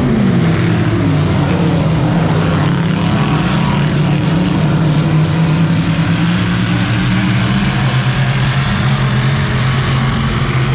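Dirt-track race car engines running, a steady low drone that drops in pitch at the start and then holds.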